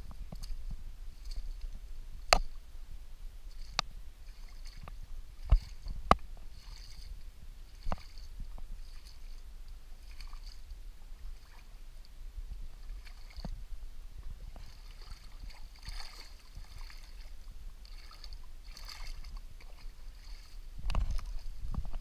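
A booted foot wading and sloshing through a shallow muddy puddle, with footsteps and a few sharp snaps in the first eight seconds.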